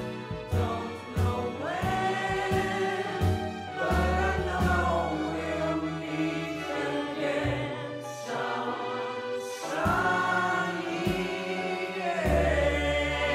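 Background music: a choir singing long, held notes over a steady bass accompaniment.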